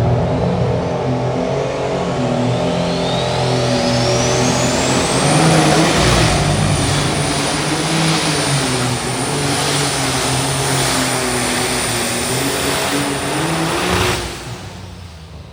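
Light super stock pulling tractor's turbocharged diesel engine running hard under load during a pull. A turbo whistle rises over the first few seconds, then holds high while the engine note wavers. About a second before the end the engine backs off and the sound drops away as the pull ends.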